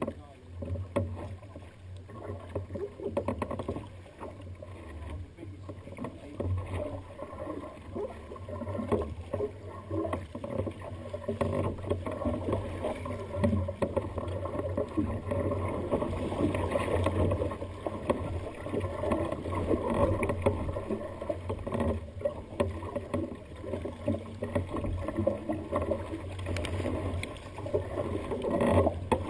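Sea water splashing and slapping against a sea kayak's hull as it moves through choppy water, getting busier about halfway through, over a steady low rumble.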